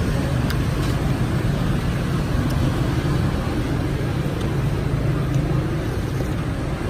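Steady street traffic noise: a continuous low drone of passing engines, with a few faint clicks over it.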